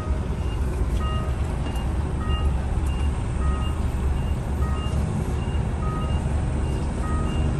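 Inside a UD Trucks Quon heavy truck's cab, the diesel engine runs with a steady low drone while an electronic reversing warning beeps evenly, about one beep every 0.6 seconds, alternating between two pitches.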